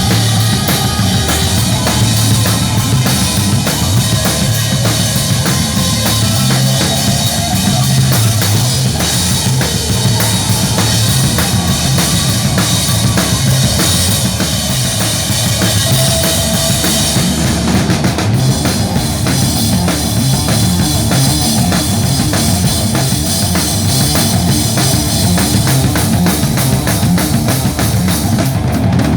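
A band playing with a drum kit keeping a steady beat, kick and snare under dense ongoing music.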